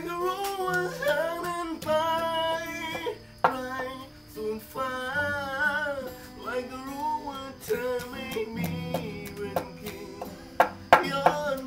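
A voice singing melodic phrases with long held notes over guitar accompaniment.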